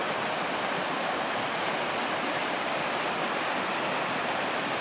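Shallow river running fast over rocks in small rapids: a steady rush of water.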